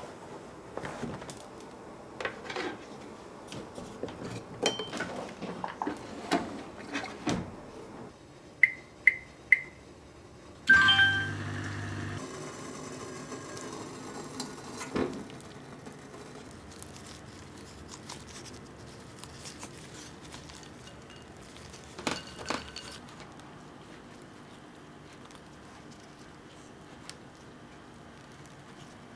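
Kitchen handling sounds: a clear plastic sous-vide water container is set down into a neoprene insulating sleeve with a run of light knocks and clicks. About nine seconds in an appliance gives three short beeps, followed by a louder beep and a brief electric hum. After that come quieter sounds of a peach being blanched in a small steel pan of water, with a few light clicks.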